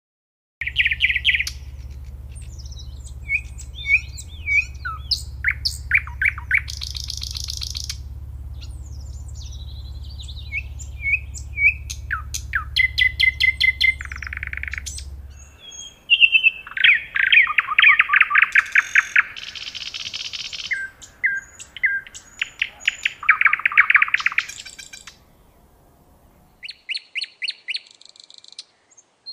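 Common nightingale singing: a string of varied phrases of rapid repeated notes, trills, pure whistles and harsh buzzy notes, with short pauses between them, starting about half a second in. A faint low hum runs under the song and stops about halfway through.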